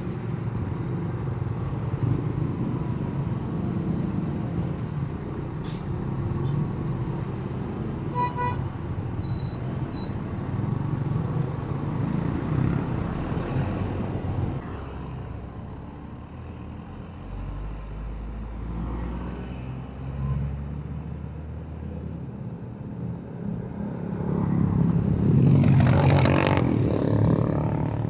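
Riding a motorcycle through city traffic: its engine running under a steady low rumble of road noise. A short pitched beep, like a horn, comes about eight seconds in, and a louder rush swells near the end.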